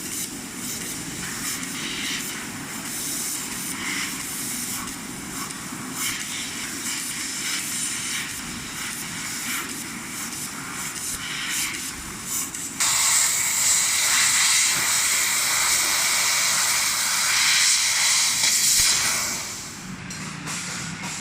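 Fiber laser cutting machine cutting stainless steel sheet: a steady hiss of assist gas jetting from the cutting head over a low machine rumble. About thirteen seconds in the hiss turns much louder and brighter, then eases off near the end.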